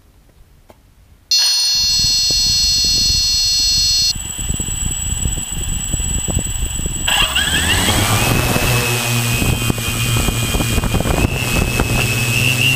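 Quadcopter drone's electric motors, heard from a camera on the drone itself: a steady high whine starts suddenly about a second in, then about seven seconds in the motors spin up with a rising whine as it lifts off, settling into a steady high whine over a low propeller hum.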